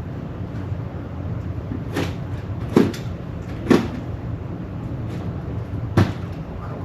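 Four short, sharp knocks or clacks spread over a few seconds, over a steady low rumble.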